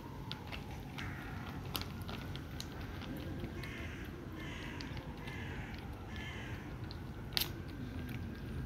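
Stray cats eating wet food, with irregular wet clicks and smacks of chewing and licking and one sharper click near the end. A few harsh, noisy calls sound in the background around the middle.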